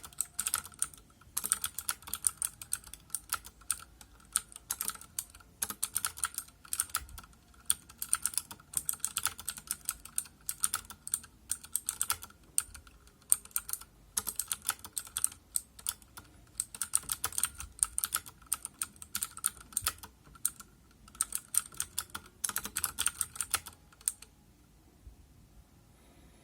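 Fast touch typing on a mechanical keyboard with clicky Cherry MX Blue switches: rapid runs of keystrokes broken by short pauses, stopping a couple of seconds before the end.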